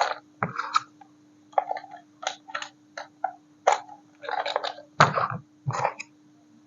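Plastic toy and packaging being handled: an irregular series of short rustles, clicks and knocks, with a faint steady hum underneath.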